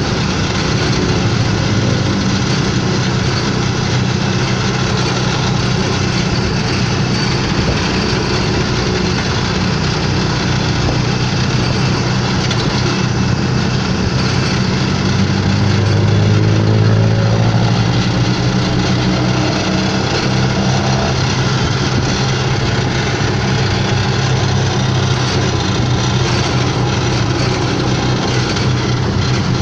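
Motorcycle engine of a tricycle (motorcycle with sidecar) running steadily under way, heard from inside the sidecar over a constant haze of road noise. The engine grows a little louder for a couple of seconds about halfway through.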